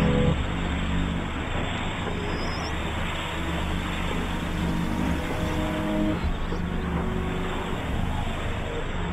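A steady, dense rumbling noise with a low hum and a few faint held tones underneath, a continuous drone-like soundscape.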